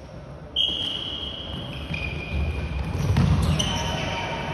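Floorball play in an echoing sports hall: high, steady squeal-like tones begin suddenly about half a second in and come again at a slightly different pitch, over the low thud of players' feet on the court and a sharp knock about three seconds in.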